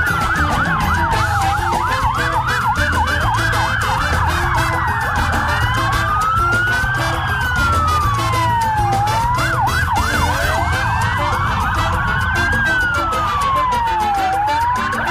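Emergency vehicle sirens: a slow wail sweeping down and up in pitch, with a fast yelping warble over it twice.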